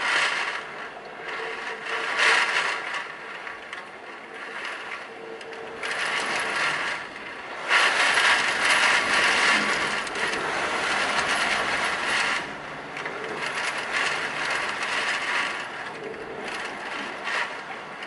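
Typhoon wind and heavy driving rain, rising and falling in gusts, with the longest and loudest surge from about eight to twelve seconds in.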